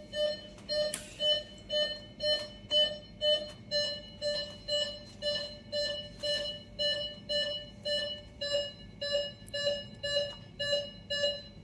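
Electronic medical-equipment alarm beeping steadily: a single mid-pitched tone repeated evenly, about two beeps a second.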